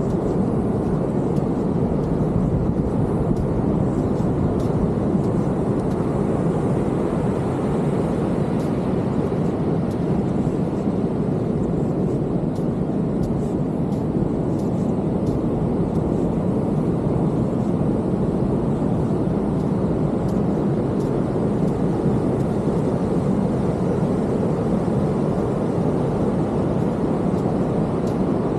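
Steady rumble of heavy ocean surf breaking on the beach.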